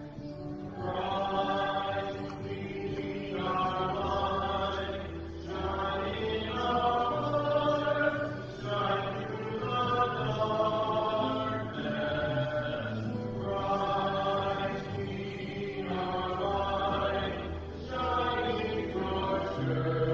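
A church hymn: voices singing phrase by phrase, breaking about every one to two seconds, over long held low accompaniment notes.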